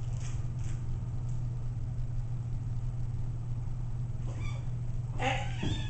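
A steady low hum throughout; near the end a kitten meows, a pitched call that rises and then falls.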